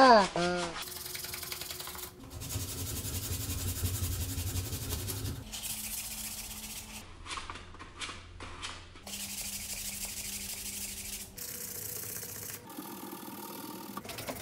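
Hand sanding of a plastic golf-cart steering wheel rim with a sanding pad: a scratchy rubbing that comes in short stretches, stopping and starting abruptly, with separate back-and-forth strokes heard in places. A brief warbling tone sounds at the very start.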